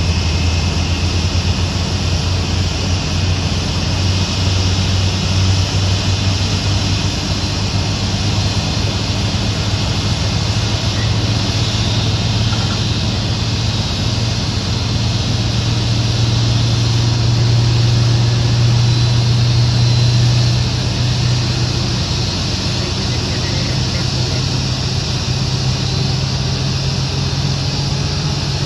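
Airbus A319 airliner running during pushback: a steady jet whine and hiss over a low engine rumble. The rumble swells for a few seconds past the middle, then eases.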